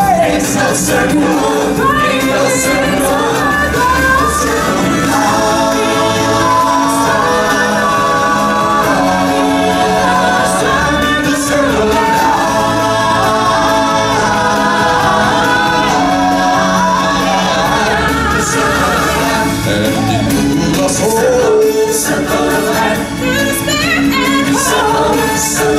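Live stage-show music: a group of singers singing together as a choir over a loud musical accompaniment.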